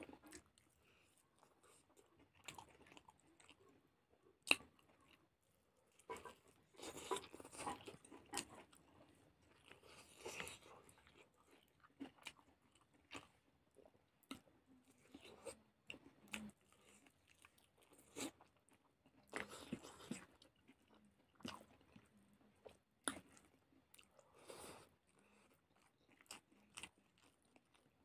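Close-up eating sounds: chewing and biting into a chicken leg and rice eaten by hand, with crunching and sharp clicks coming in irregular bursts.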